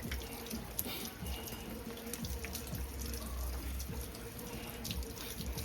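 Rain falling: a steady hiss of drops with many small irregular ticks and drips.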